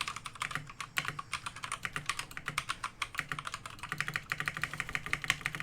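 Fast, continuous typing on an Akko 3087 World Tour Tokyo mechanical keyboard, many keystrokes a second. A stand-in, low-quality spacebar is fitted.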